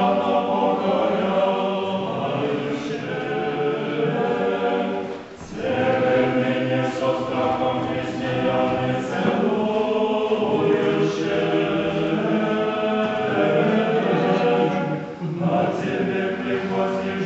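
Choir singing Russian Orthodox liturgical chant a cappella in long sustained phrases, with short breaks between phrases about five seconds in and again near the end.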